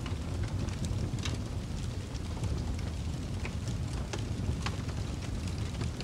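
Log fire burning: a steady low rumble of flames with scattered sharp crackles and pops from the wood.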